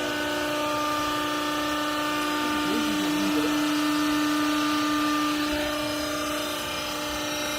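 Hydraulic power unit of a vertical clothing baler running with a steady hum, easing off slightly about five seconds in.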